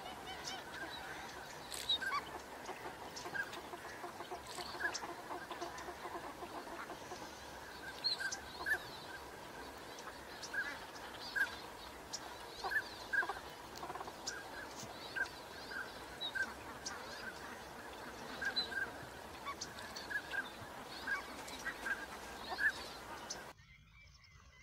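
Waterfowl calling: many short, honk-like calls repeated at irregular intervals, some overlapping. The sound cuts off suddenly near the end.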